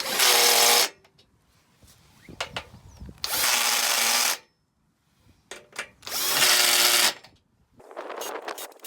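Power drill driving bolts into an aluminium goal crossbar: three bursts of about a second each, a few seconds apart, with light knocks of metal parts being handled near the end.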